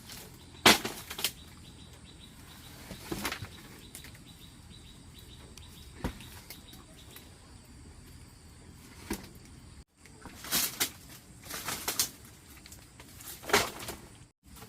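Irregular knocks and rustling scrapes in short separate bursts, the loudest about a second in, like materials being handled during work.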